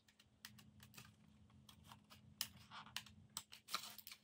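Faint, irregular clicks and crinkles of a plastic blister pack on a cardboard backing being picked at and pried open by hand to free an eyelash curler. A few sharper clicks come in the second half.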